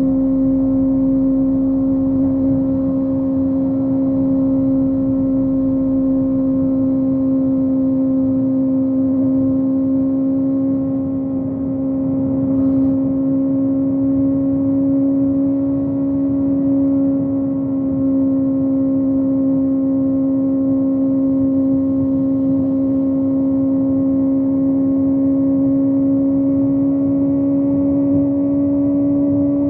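Kawasaki ZX-25R's 250 cc inline-four, with a Yoshimura exhaust, running at a steady high-revving cruise, the note holding even and creeping slightly higher near the end, with wind and road rumble beneath it.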